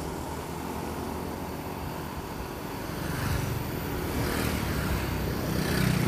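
Street traffic passing steadily, growing louder over the last few seconds as vehicles go by.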